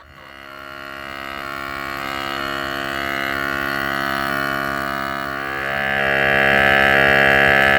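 A steady, droning tone with many overtones, like a held instrument note, swelling gradually louder with a small shift in pitch about halfway through.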